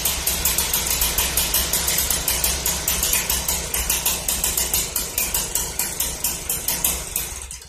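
Two-stroke engine of a Stihl BG 65 leaf blower running with a regular pulsing, about five beats a second, while its freshly fitted replacement carburetor is being tuned. It fades and cuts out at the very end.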